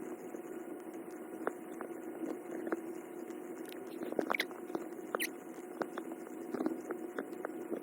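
Cat kneading with its paws: scattered soft scratchy clicks of claws catching on fabric, over a steady low hum.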